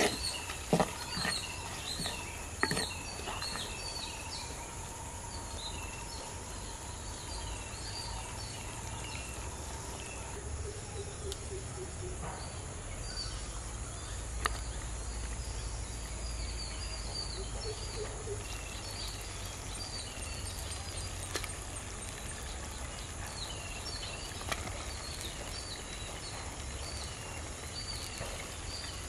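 Outdoor ambience: birds chirping again and again over a steady high insect drone and a low steady rumble, with a few sharp knocks in the first three seconds.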